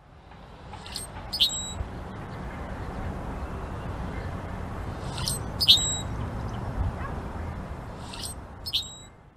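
A bird calling in short, sharp double notes, three pairs a few seconds apart, over a steady rushing background noise.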